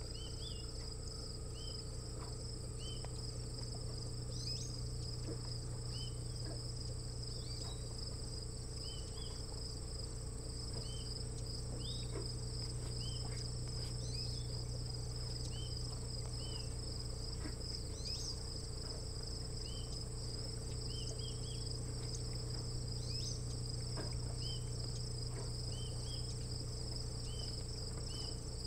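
Steady chorus of crickets trilling high and pulsing, with short chirps every second or two and a steady low hum underneath.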